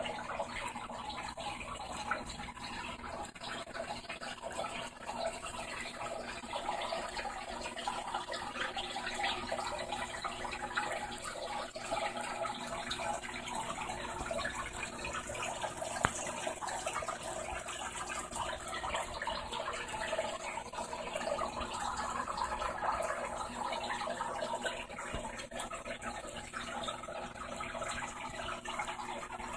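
Aquarium filter water steadily trickling and splashing into the tank, with one sharp click about halfway through.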